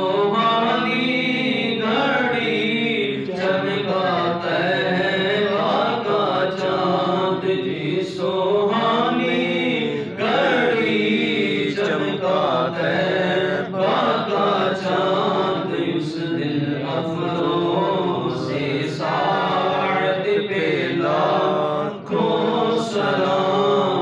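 A lone man chanting a salam, a devotional salutation to the Prophet Muhammad, unaccompanied, in long melismatic phrases with gliding and held notes and short breaths between them.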